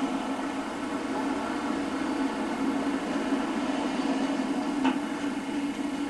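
Steady engine and road hum heard from inside a moving car's cabin, with one small click about five seconds in.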